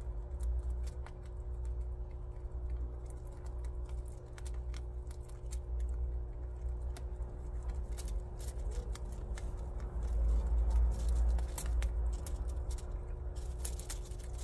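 Prairie dog chewing fresh grass stalks: an irregular run of small crisp clicks and crunches, over a steady low hum.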